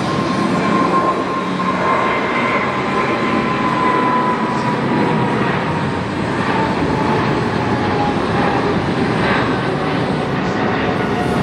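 Jet airliner engines running loudly, a steady rushing noise with a whine that slowly falls in pitch.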